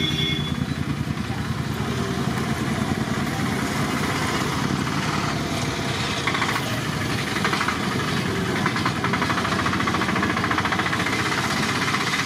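Punugulu batter fritters deep-frying in a large kadai of hot oil, a steady crackling sizzle that grows stronger about halfway through, over a continuous low rumble.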